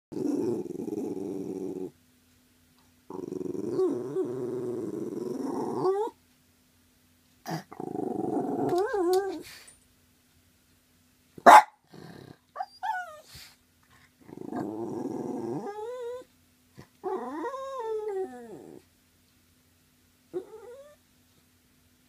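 Jack Russell Terrier growling at magpies seen through a window, in several long low growls that break into rising whines at their ends. About halfway through comes a single loud, sharp bark, followed by short yips.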